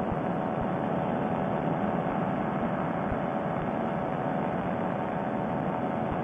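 Paramotor engine and propeller running steadily at cruise power in flight, an even drone with no change in pitch, heard through a Bluetooth headset microphone that cuts off the high end.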